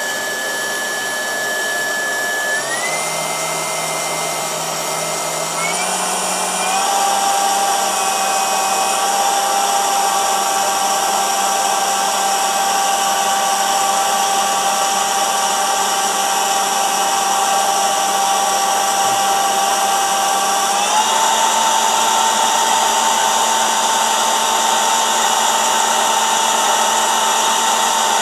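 Electric CNC spindle motor, driven by a Bosch Rexroth EFC 5610 VFD, running at about 8,000 to 13,600 rpm. Its whine jumps in pitch in steps as the speed is raised, about 3, 6, 7 and 21 seconds in. The VFD's cooling fan makes a steady hiss, which at 12,000 rpm is still noisier than the motor.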